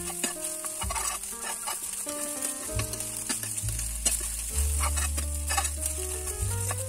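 Food sizzling in a frying pan over a wood fire while a metal spoon stirs and scrapes it, with clicks of the spoon against the pan. Background music with held notes and a low bass line plays throughout, the bass loudest in the second half.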